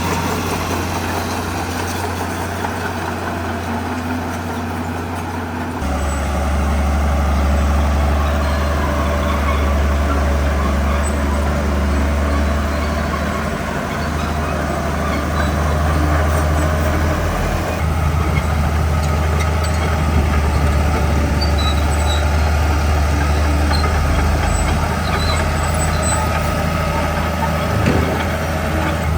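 Heavy diesel engine of earth-moving machinery running steadily at work, getting louder about six seconds in and changing pitch a few more times as it works.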